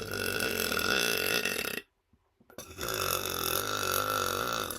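A man burping: two long, drawn-out belches. The first ends about two seconds in, and the second begins after a short pause and carries on.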